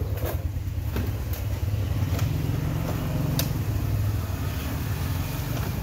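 A steady low engine-like rumble, with a few faint clicks and taps over it.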